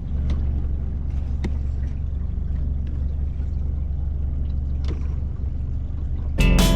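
Boat's outboard motor running steadily, a low even drone with a few faint clicks. Guitar music starts just before the end.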